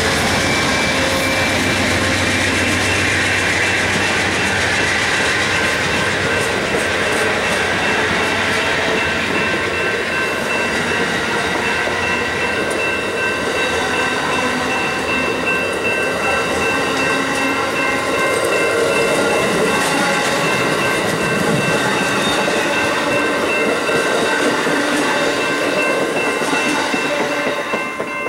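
Amtrak passenger train of baggage car and double-deck Superliner coaches rolling past at speed, wheels clacking over the rail joints in a loud, steady rush that drops off right at the end as the last car clears. A level-crossing warning bell rings steadily throughout.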